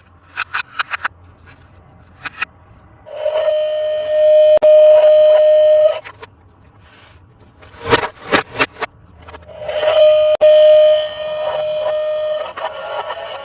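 Plastic clicks from a Paw Patrol Rubble bulldozer toy being handled and its button pressed, then the toy's electronic sound chip plays a steady buzzing tone for about three seconds. The clicks and the tone come again about eight seconds in.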